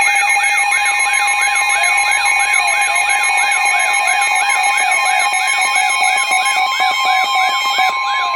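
NOAA Weather Radio emergency alert tones: the steady 1050 Hz warning alarm tone layered with a siren-like tone that sweeps up and down about two and a half times a second, over other steady and pulsing beeps.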